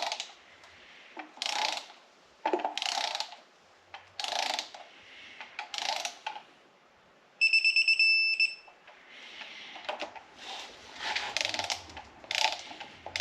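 Hand ratchet wrench running small bolts down in short runs of clicks, about every second and a half. Midway a rapid electronic beeping sounds for about a second.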